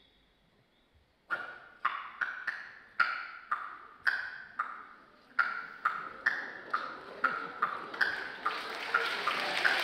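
Dripping sounds made with the mouth into a headset microphone: a run of short pitched plops, two or three a second and coming faster toward the end, like drops of water. From about eight seconds in a hiss builds up under them.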